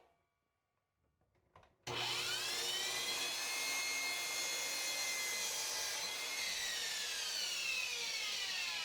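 After about two seconds of near silence, a power saw starts abruptly and cuts a 45-degree bevel through a wooden board, with a dust collector running alongside. Its whine rises at first and then slides lower toward the end as the blade works through the wood.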